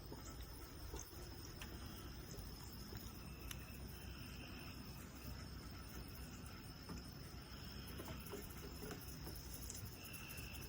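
Crickets chirping steadily and faintly, with a few small clicks.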